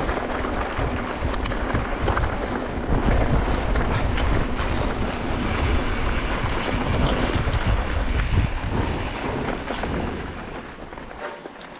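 Wind buffeting the microphone: a loud, steady rumbling noise with scattered small clicks and rattles, easing off about ten seconds in.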